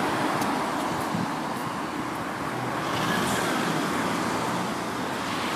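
Small 125cc motorcycle engine running at a steady pace on the move, under wind and road noise, with car traffic around it.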